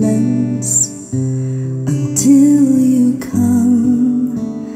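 A song playing through Victor SX-3 Mark II loudspeakers driven by a Magnet PR-8A Class-A preamplifier and MA-5 power amplifier, recorded in the room.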